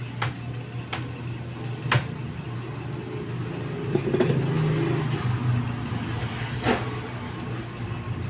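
A steady low hum with a few sharp light clicks and taps from small tools being handled on a bench, and a short bit of handling noise about four seconds in as a pen-style soldering iron is picked up.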